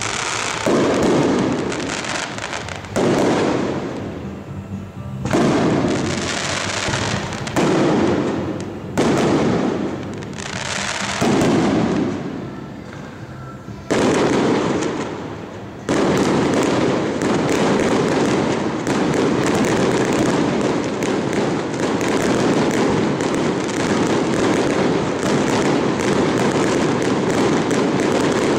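Aerial fireworks shells bursting. For the first half there is a sharp report every two seconds or so, each fading away. About halfway in the bursts run together into a dense, continuous barrage of booms and crackle.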